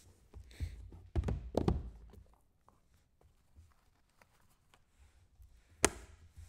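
Black numbered card boxes being handled: one is pulled from a stack and set down on the table with several dull thunks and knocks in the first two seconds. Light taps follow, then a single sharp click near the end as the box is opened.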